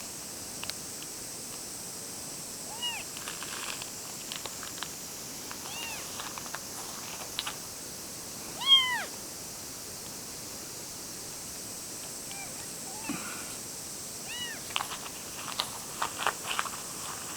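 A small kitten meowing five times: short, high mews that rise and fall, a few seconds apart, the one about halfway through the loudest. Light clicks and scuffs in between, growing busier near the end.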